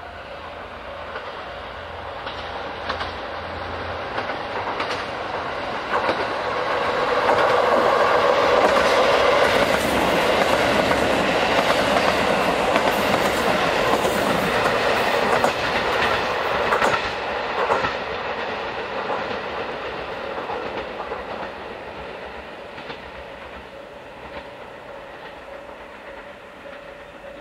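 KiHa 185 series diesel railcars passing at speed, their wheels clicking over the rail joints. The sound builds for several seconds, is loudest as the cars go by, then fades as the train runs away down the line.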